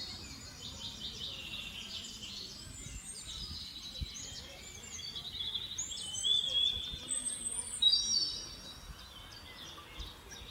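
Small songbirds chirping and trilling, several calls overlapping, busiest about six to eight seconds in, over faint low background noise.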